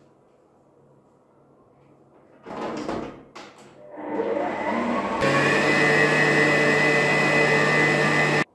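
Electric stand mixer with a wire whisk beating cake batter in a steel bowl. Its motor starts about four seconds in, rises in pitch as it speeds up, steps up to a loud steady high-speed run with a high whine, then stops abruptly near the end.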